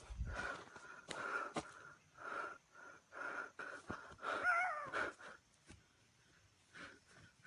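A person breathing hard and wheezily close to the microphone, about two breaths a second, with a brief wavering voiced sound about four and a half seconds in. The breathing eases off after about five seconds.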